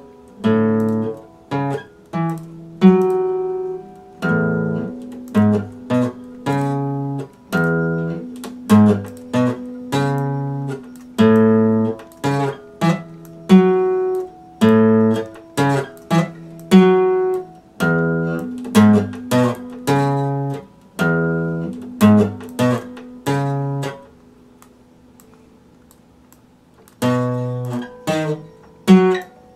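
Epiphone steel-string acoustic guitar strummed in chords, a repeating rhythm of strokes that each ring and decay. The strumming stops for about three seconds near the end, then starts again.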